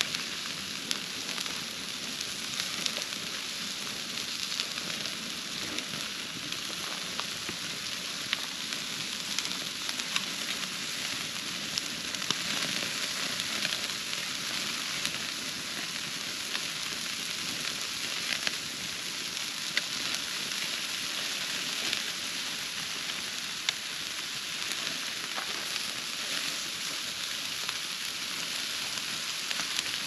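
Food sizzling in olive oil on a metal grill grate over a wood campfire: a steady hiss with scattered sharp pops.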